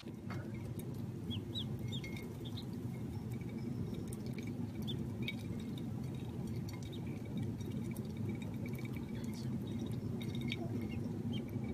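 Ducklings giving scattered faint, short peeps over a steady low hum.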